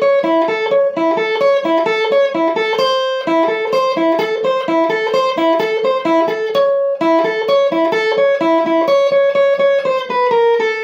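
Electric guitar played with fast alternate picking on the high E string: a repeating figure of open E, A and C sharp, then open E, A and C natural. The run pauses briefly twice, and the last note rings on.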